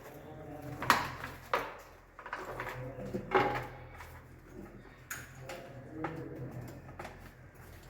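Sharp clicks and knocks, four of them standing out, from hands and tools working on circuit breakers and wiring in a distribution board.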